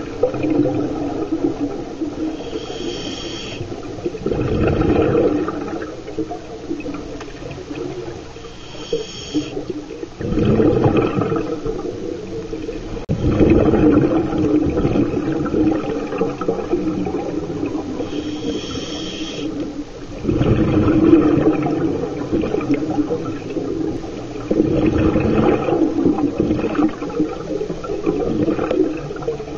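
Scuba regulator breathing heard underwater: a short hissing inhale with a high whistle through the regulator, then a longer, louder gurgle of exhaled bubbles, repeating roughly every five seconds.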